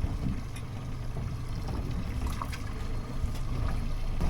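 Small boat on rough, choppy water: a low rumble of wind and water against the hull, with a few faint knocks.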